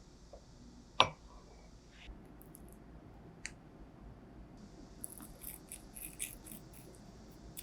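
Quiet kitchen handling while making pasta dough: one sharp knock about a second in, then faint light clicks and rustles.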